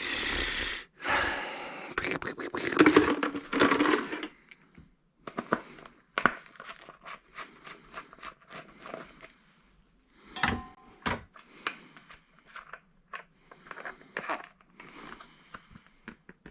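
Hand work on an ATV's plastic air box. A few seconds of loud scraping and rustling, then scattered light clicks and taps of handling.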